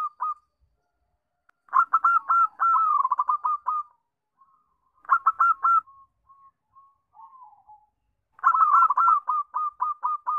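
Zebra dove (perkutut) cooing in quick runs of short, rapid coo notes: a long run about two seconds in, a short one in the middle, and another long run near the end, with a few soft single coos in between.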